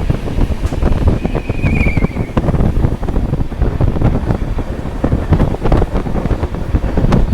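Moving passenger train rumbling and clattering over the rails, with wind buffeting the microphone and a brief high squeal about a second in.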